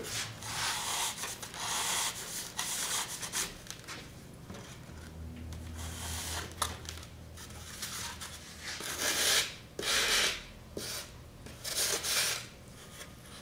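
Sandpaper on a small hand sanding block rubbed back and forth along the sawn edge of a mold piece, smoothing the angled cut. It comes in runs of scraping strokes with a quieter pause in the middle.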